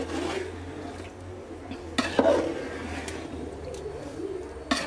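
A spoon stirring thick chicken curry gravy with yogurt in a large aluminium pot: wet squelching of the meat and masala, with a sharp clink of the spoon against the pot about two seconds in and again near the end.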